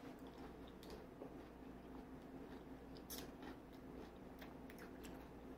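Faint, sharp clicks and crackles of a cooked crab's shell being picked apart by fingers, a handful of them in the second half, over a low steady room hum.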